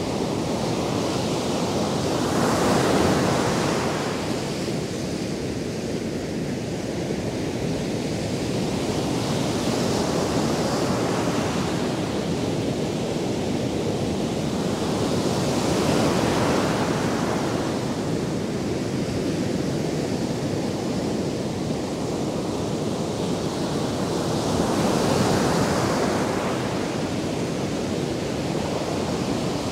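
Ocean surf breaking and washing up a sandy beach: a steady rush of water that swells four times as waves break.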